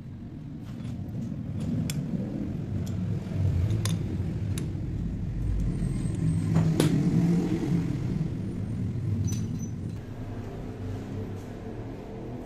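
Sharp metal clicks and taps as a lathe tool bit is set in the four-way tool post and its clamping screws are tightened with a wrench, the loudest about seven seconds in. A low rumble swells and fades beneath them.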